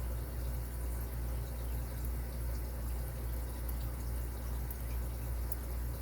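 Steady low hum under faint, small scratching ticks from a lock pick working the pins of a padlock under tension.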